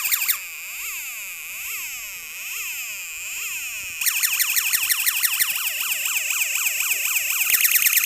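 Electronic sound-generator circuit producing synthetic siren tones. It plays a quieter, slow rising-and-falling wail for the first few seconds, then a louder, faster repeating sweep from about four seconds in. Near the end it switches to a rapid warbling alarm tone.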